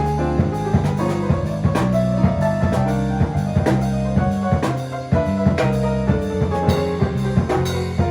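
A Latin-style jazz instrumental with a drum kit playing a busy, steady groove of frequent hits, under sustained bass notes and pitched melodic lines.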